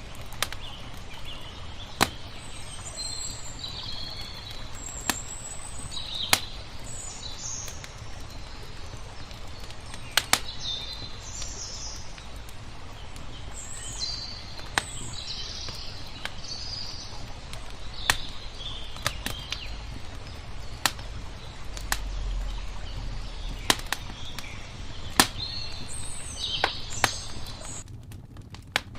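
Wood fire crackling, with a sharp pop every second or two, while small birds chirp over a steady low wash of water.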